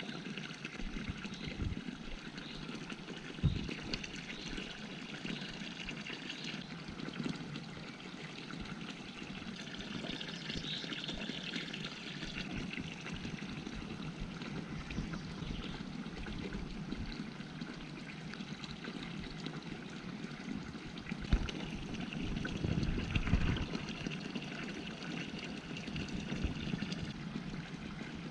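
Small brook trickling steadily over stones. A few short low thumps come about 3.5 and 21 seconds in, with a brief low rumble soon after the second.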